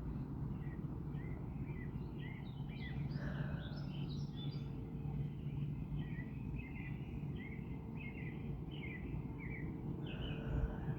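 Small birds chirping in many short, quick notes, over a steady low hum.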